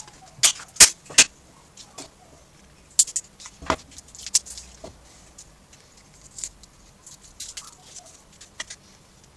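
Irregular sharp plastic clicks and snaps as a laptop battery pack's casing is prised apart and handled, the loudest in two clusters near the start and around the middle.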